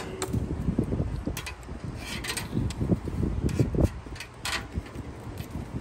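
Wind buffeting the microphone as an uneven low rumble, with a few short clicks.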